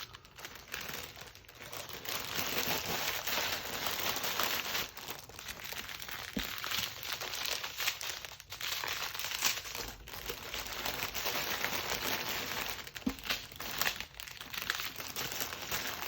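Plastic packaging of a diamond painting kit crinkling and rustling as it is handled, broken by a few brief pauses.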